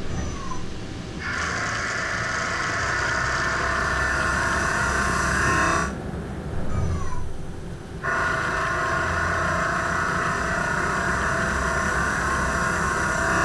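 Dry turning of a cast iron brake rotor with a ceramic insert on a CNC mill-turn lathe: a steady, high-pitched cutting whine over noise, with no coolant running. It drops out briefly at the start and again about six seconds in.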